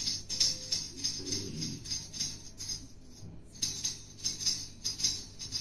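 Jingling hand percussion keeping a steady beat of about three strokes a second. It starts abruptly and drops out for a moment past the middle.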